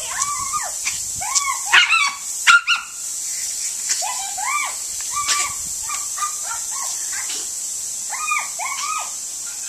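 Small terrier-type dog yipping and whining excitedly in many short high-pitched calls, often two at a time, as it goes after a lawn sprinkler's spray.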